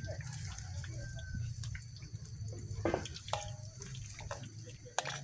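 A large wok of liquid bubbling at the boil over a wood fire, a steady watery bubbling with scattered sharp crackles and clicks.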